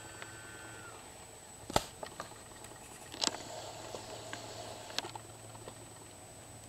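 Quiet background with a faint steady hum, broken by a few sharp clicks. The loudest click comes a little under two seconds in, with weaker ones about halfway through and near five seconds.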